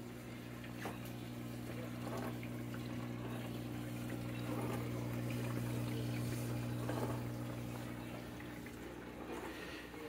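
Panasonic SOLOTA mini dishwasher running its wash cycle: the pump motor hums steadily while water sprays and splashes against the dishes and the inside of the glass door.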